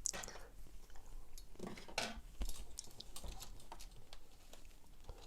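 Hands handling a netbook's loosened plastic keyboard and case: scattered small clicks and taps, with a few short scrapes of plastic about two seconds in.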